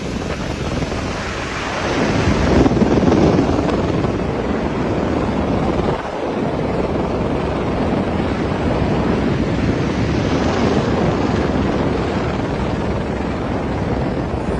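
A flooding river running with a loud, steady noise of churning water, with wind noise on the microphone.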